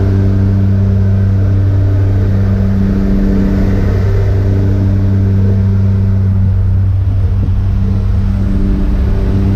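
Jump plane's engines and propellers droning steadily, with wind rushing in through the open door, heard from inside the cabin: a loud, constant low hum with a few overtones.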